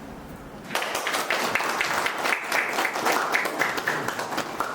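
Audience applauding, starting suddenly about a second in as a dense patter of many hands clapping, and easing off near the end.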